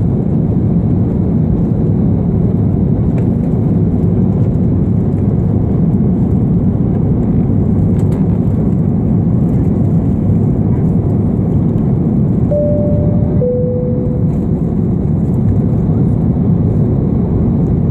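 Steady airliner cabin noise at cruise: the even rush of airflow and engines heard from inside the passenger cabin. About two-thirds of the way through, a two-note cabin chime sounds, a higher tone followed by a lower one, each about a second long.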